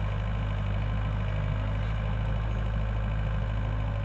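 Diesel engines running at a steady low drone, from a Doosan DX55 excavator raising its boom beside a Thaco dump truck.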